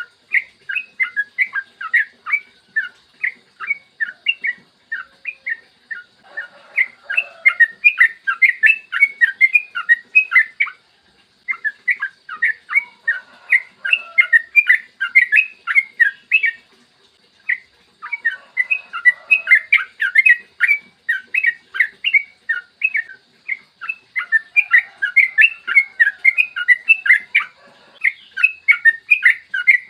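Yellow-vented bulbul (trucukan) singing long, rapid runs of short chirping notes, broken by a couple of brief pauses.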